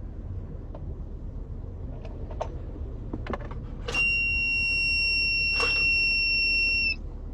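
A few clicks, then a portable power station's alarm sounds a loud, steady high-pitched beep for about three seconds and cuts off. This is typical of an overload warning as the toaster oven plugged into it fails to run. A low hum from the idling car runs underneath.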